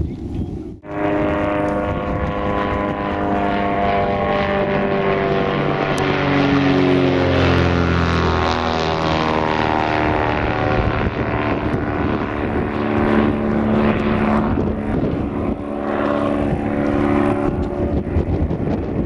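Cessna 337A Super Skymaster, a push-pull twin with piston engines and propellers front and rear, droning as it flies by overhead. The sound drops out briefly about a second in, then comes back loud. Its propeller tones slide down in pitch in the middle as it passes, then settle into a steady drone.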